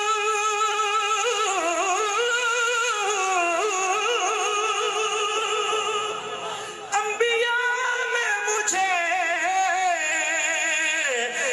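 A man singing a naat: a long held note at the start, then slow, wavering ornaments on the melody, a short drop about six and a half seconds in before a new phrase, and another long held note near the end.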